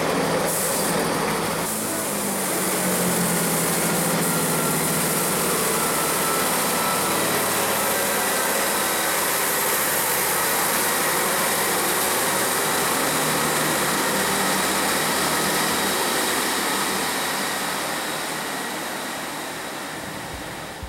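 Diesel multiple-unit train running steadily with a continuous engine and rushing noise, fading away over the last few seconds.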